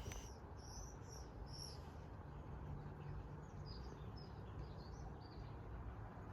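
Faint small-bird chirps: a quick run of short, high chirps near the start and another scattered group around the middle, over a low, steady background rumble.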